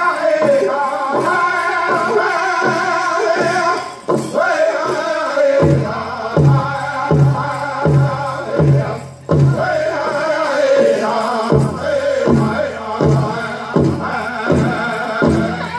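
Powwow drum group singing a prairie chicken contest song, high men's voices in unison over a big drum. About five and a half seconds in, the drum strokes come in loud and steady, roughly three beats every two seconds.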